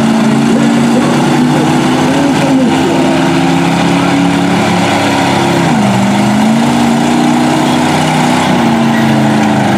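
Engines of big-tyred mud bog trucks running steadily as they crawl through a water-filled mud pit; the engine note drops in pitch about six seconds in and then holds.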